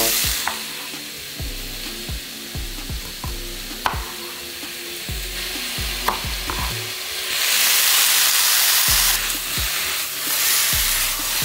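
Chopped onion, red pepper and zucchini sizzling in oil in a frying pan, with a knife knocking again and again on a wooden chopping board as cherry tomatoes are halved. About seven and a half seconds in, the sizzle gets louder for a second or two.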